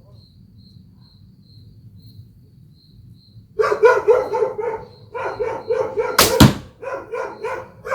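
A dog barking rapidly and without pause, about five barks a second, starting about three and a half seconds in after a quiet stretch. A single loud, sharp crack sounds about six seconds in.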